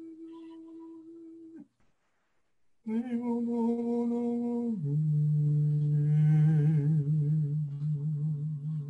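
A man's voice humming long, steady held notes. The first note fades out early on a falling slide. After a short pause a louder note starts and steps down to a lower, deeper note about two seconds later, held to the end, with a faint wavering overtone high above it for a moment.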